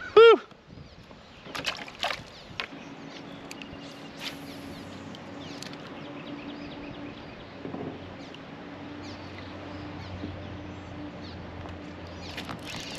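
Kayak and gear sounds: a few knocks and clicks in the first few seconds, with faint water sloshing. A steady low hum comes in about three seconds in and holds. A brief shout comes right at the start.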